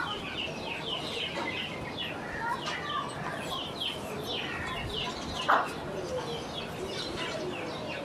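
Birds chirping: many short, quick calls that overlap throughout, with one louder short sound about five and a half seconds in.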